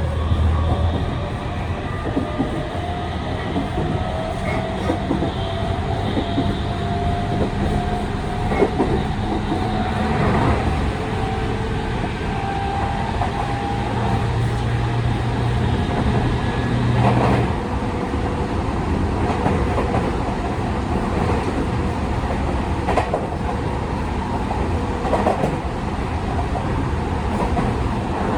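Tokyu 5000 series electric train running, heard inside a motor car: the Hitachi IGBT-VVVF inverter and TKM-98 traction motors whine, the pitch rising slowly over the first ten seconds or so as the train gathers speed and then holding steady, over a continuous rumble. The wheels knock over rail joints several times.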